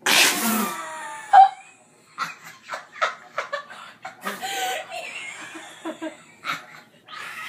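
A girl splutters out a mouthful of dry ground cinnamon in a loud, breathy burst, then laughs in short fits as she doubles over.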